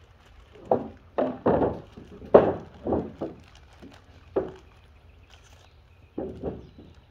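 Lumber boards knocking against each other and the wooden trailer deck as they are shifted by hand: about ten irregular wooden knocks, then a pause of nearly two seconds before two last knocks.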